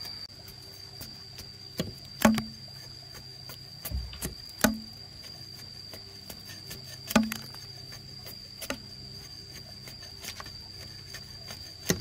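A series of sharp knocks, a second or a few seconds apart. The three loudest each leave a short low ring. A steady high-pitched tone runs under them.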